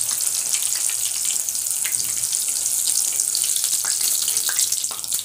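Hot oil sizzling steadily in a kadai as deep-fried chicken pieces are lifted out with a wire skimmer, with a few small crackles and pops.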